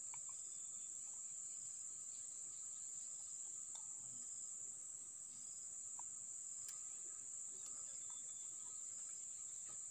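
Steady, faint, high-pitched insect chorus, a continuous shrill trill from crickets or similar insects in the swamp vegetation.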